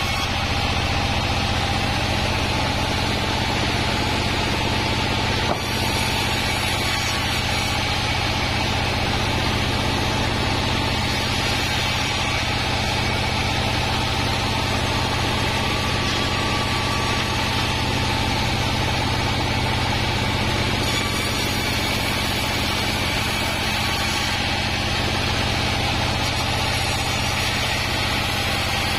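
Diesel-driven band sawmill running steadily: the engine's even drone and the running band saw, with slabs of wadang timber being fed through the blade.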